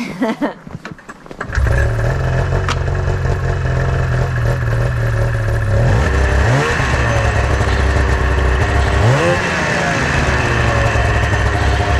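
1999 Arctic Cat ZR600 snowmobile's two-stroke twin catches about a second and a half in and then runs steadily. It is revved up and back down twice, with the rear propped up and the track off the ground, a no-load test of a sled that bogs when pulling away.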